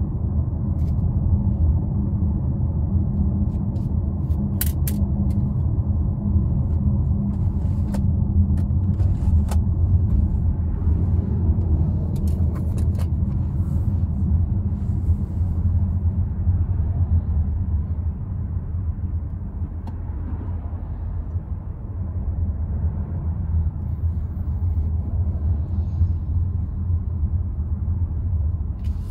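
Cabin noise inside a BMW X3 xDrive30d (G01) on the move: a steady low rumble of tyres, road and its 3.0-litre six-cylinder diesel. A few short faint clicks sound between about four and thirteen seconds in, and the rumble eases a little around twenty seconds in.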